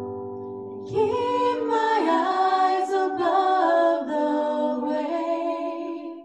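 Women's voices singing a worship song in harmony: a held chord at first, then about a second in a louder, moving melody line. The sound cuts off suddenly at the very end.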